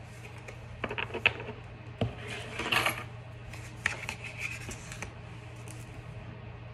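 Tarot cards being shuffled by hand and dealt onto a tabletop: scattered light clicks and card taps, with a longer papery rustle of shuffling just before three seconds in and more rustles and taps around four to five seconds in, over a steady low hum.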